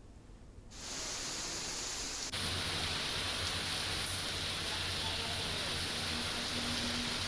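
Steady heavy rainfall, a continuous hiss of rain that sets in about a second in. A couple of seconds later it changes abruptly to rain on a city street, with a steady low hum underneath.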